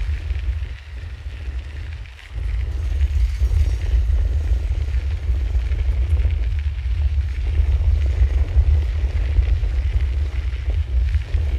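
Wind buffeting a handheld recorder's microphone as a bicycle rides along: a heavy, uneven low rumble that eases briefly about two seconds in.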